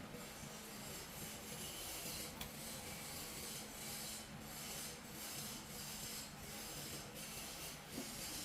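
Expanded polystyrene foam sizzling and crackling as a red-hot iron ball melts into it: an uneven hiss that swells and fades every second or so, with a sharp tick about two and a half seconds in.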